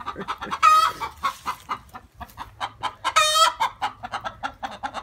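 Hens clucking rapidly, broken by two loud, drawn-out squawks about a second in and again about three seconds in: agitated hens, upset by a dog in their coop.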